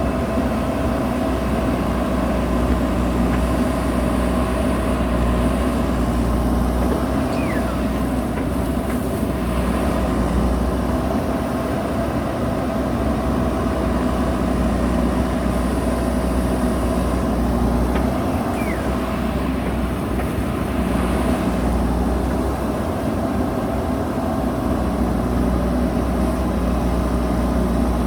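JCB backhoe loader's diesel engine running steadily under work, with a strong low rumble. Faint, brief falling squeaks come three times, about ten seconds apart.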